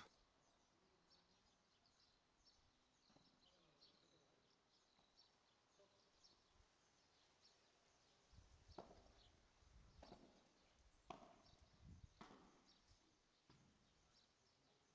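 Faint padel rally: about five sharp ball strikes, roughly a second apart, in the second half. Faint high bird chirps run underneath.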